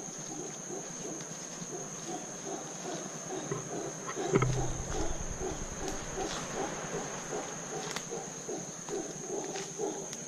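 Wild animal calls in the rainforest: a steady run of rapid, repeated pulsed calls, several a second, with a couple of sharp clicks, one about four seconds in.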